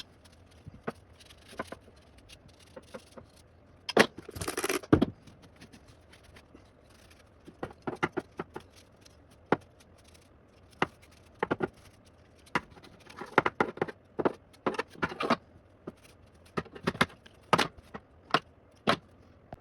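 Scattered clicks, taps and short scrapes of hands cleaning metal typewriter parts with glass cleaner and a cloth, with a longer noisy burst about four seconds in.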